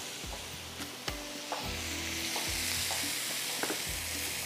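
Marinated boneless chicken pieces sizzling on a hot grill pan, a steady high hiss, with a few sharp knife taps on a wooden chopping board as coriander is chopped.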